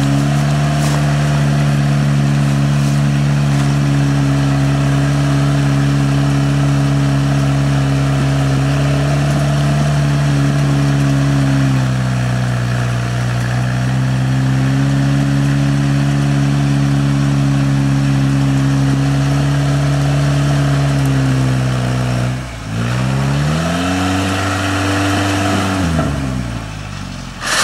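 Off-road vehicle's engine running hard at steady high revs. It eases off about twelve seconds in and picks back up, then drops sharply near the end before a quick rev up and back down.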